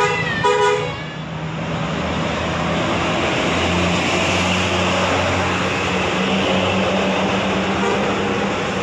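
The last notes of a bus's multi-tone 'telolet' horn in the first second, then the bus's diesel engine running loud and steady with road noise as it drives past, swelling in the middle and easing off near the end.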